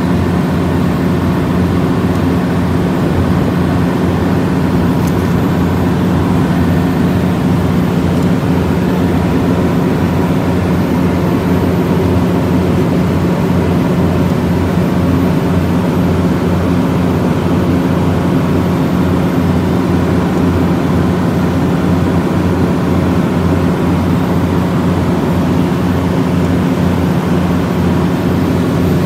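Multiquip DCA150 portable diesel generator running steadily: its diesel engine gives a loud, even drone with a strong low hum that holds unchanged.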